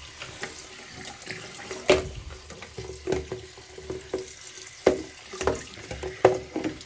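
Electrode steam humidifier running: water boiling between its electrodes, gurgling with irregular sharp pops over a steady faint hum.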